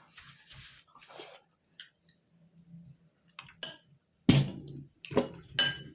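Tableware knocking at a meal: a sharp thump about four seconds in, then two quicker knocks of bowl and spoon, the last with a short ring.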